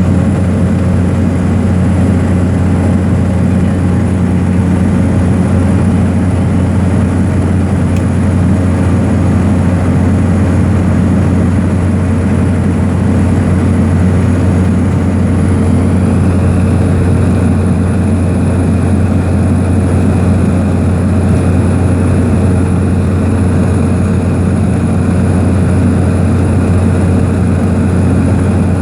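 Aircraft engines droning steadily, heard from inside the passenger cabin in flight, with a deep low hum under it.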